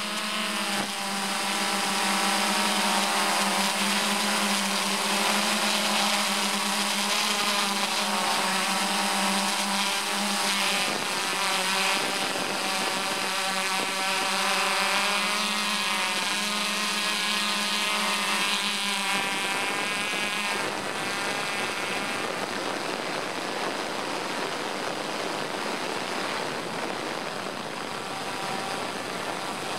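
Multirotor drone's propellers whirring steadily, their whine wavering in pitch as the drone manoeuvres; about two-thirds of the way through the lower tones drop away, leaving a steady rushing noise.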